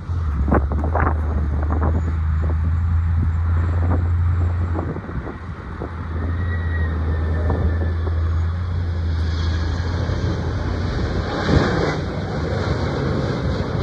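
Low steady rumble of passing road traffic and a Boeing 767 freighter's jet engines on final approach, with a broad rushing roar building from about nine seconds in as the jet comes closer. Wind on the microphone runs under it.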